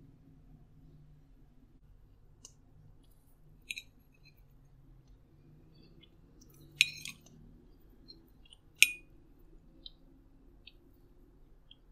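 A metal fork clinking against a plate as it cuts through banana bread: a few light clicks, with two louder clinks about two seconds apart in the second half, over a faint low hum.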